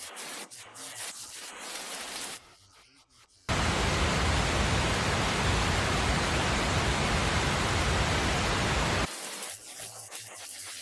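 A loud, even static-like hiss starts abruptly about three and a half seconds in and cuts off suddenly about nine seconds in. Before and after it there is a quieter, uneven rain-like patter, with a near-silent gap just before the hiss.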